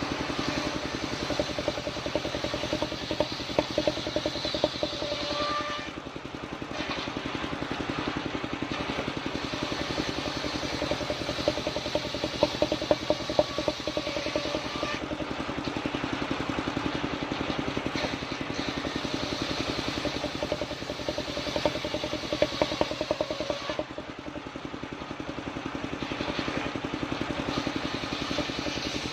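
Engine-driven portable circular sawmill running steadily while it saws sengon (albizia) timber. The hiss of the blade fades briefly twice, about six seconds in and again near the end, while the engine keeps running.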